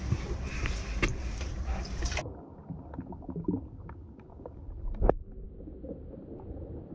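Action camera on a crab-snare pole picking up water and wind noise in a tidepool crevice. About two seconds in, the sound turns suddenly muffled as the camera is underwater, with dull knocks of the pole against rock, the loudest about five seconds in.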